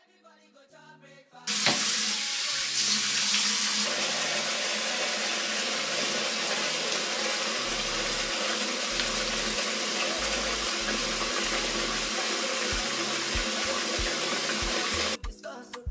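Bathroom tap running hard into a sink, starting about a second and a half in and cutting off suddenly near the end, with background music and its bass line faintly underneath.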